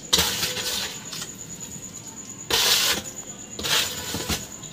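Wet cement mortar being spread and smoothed by hand over brickwork: three scraping swishes, the first lasting about a second, then two shorter ones past the middle. A cricket chirps steadily and high in the background.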